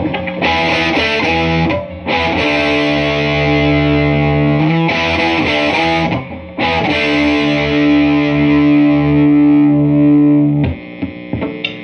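Telecaster electric guitar played through a Crate VC5212 Vintage Club 50 tube combo amp on its overdrive channel with the gain at 8, giving a heavily distorted tone. Four strummed chords are left ringing, then cut off near the end, followed by a few short muted scratches.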